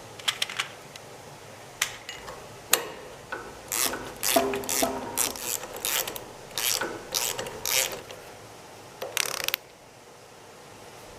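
Ratchet wrench being worked in about ten short clicking strokes, then one longer run of clicks near the end.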